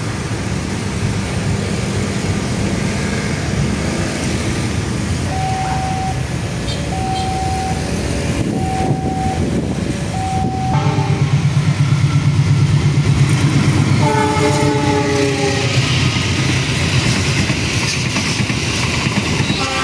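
A level-crossing warning signal sounds four short, evenly spaced tones. Then a passenger train's diesel locomotive runs past with a heavy rumble and gives a multi-tone horn blast of about two seconds, with a second blast starting near the end. The carriages clatter along the rails throughout.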